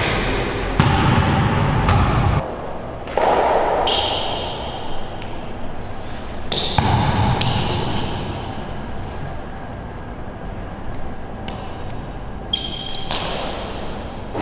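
A basketball bouncing and being handled on a hard court floor at irregular intervals, in a small walled indoor court where the sound echoes.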